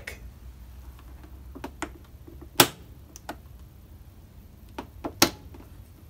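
Several sharp plastic clicks from a Husqvarna zero-turn mower's PTO switch and ignition key being worked, the loudest about two and a half seconds in and again near the end. No PTO clutch engagement click follows, so no power is reaching the PTO.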